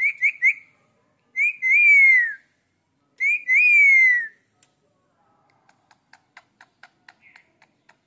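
Indian ringneck parakeet whistling: three quick high chirps, then twice a short note followed by a long falling whistle. Later, faint rapid clicking, about five a second.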